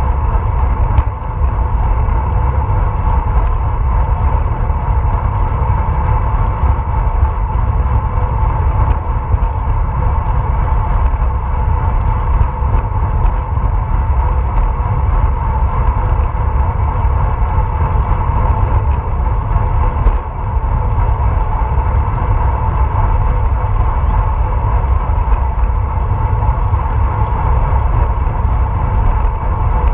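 Wind rushing over a bike-mounted action camera's microphone as a road bicycle rides at speed, with steady tyre and drivetrain noise. The wind makes a loud, continuous low rumble.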